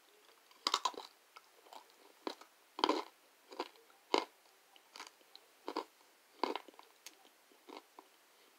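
A person chewing crunchy chunks of kudzu starch: a run of sharp, uneven crunches, about two a second.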